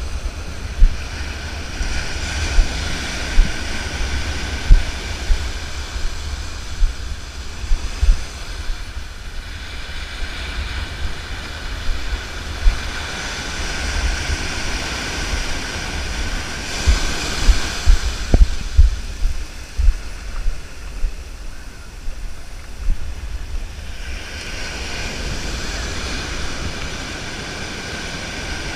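Wind buffeting the microphone in gusty thumps over the hiss of surf washing up the beach. A high steady whine in several pitches fades in and out a few times.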